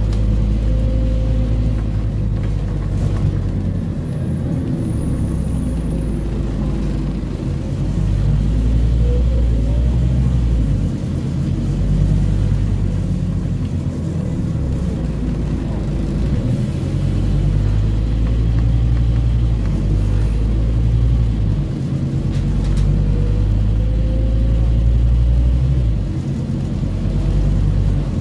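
Scania Omnicity N230UD double-decker bus's diesel engine heard from inside the passenger saloon, pulling under way. The automatic gearbox changes gear several times, so the low engine note drops and climbs again in steps every few seconds.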